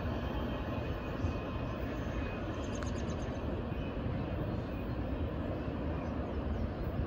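Distant freight train rumbling steadily down the line.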